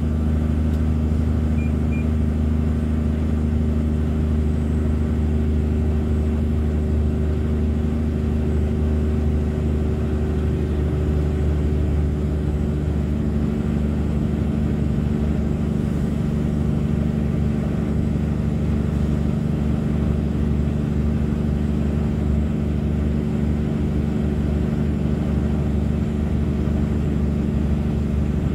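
Log truck's diesel engine running steadily as the truck drives, heard from inside the cab as a constant low drone with a stack of engine tones. The engine note shifts a little about twelve seconds in.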